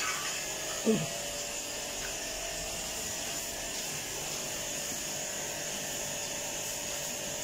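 A small electric motor running steadily, a hum with a high hiss, with a brief falling voice-like sound about a second in.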